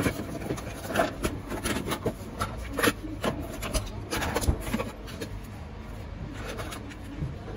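Cardboard toy box and loose hard-plastic toy plane parts being handled: irregular scraping, rubbing and light clicks, busiest in the first five seconds and sparser after.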